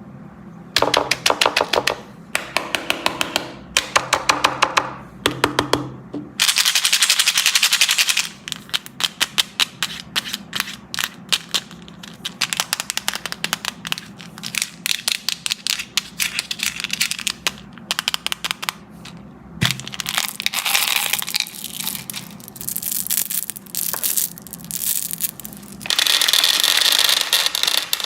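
Lemon crackle candy crackling: quick runs of sharp, dry cracks and clicks, swelling at times into a few seconds of dense, continuous crackle.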